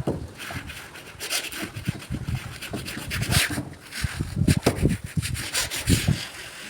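Irregular rubbing and scraping, a run of short uneven strokes with dull low knocks among them.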